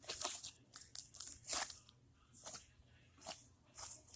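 Slime being squeezed and worked in the hands, giving a string of short, irregular crackles and pops.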